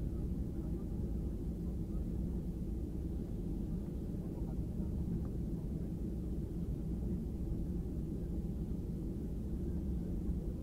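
Steady low rumble inside the cabin of a Boeing 737-800 taxiing, its CFM56 turbofans at taxi power as the plane rolls along the taxiway.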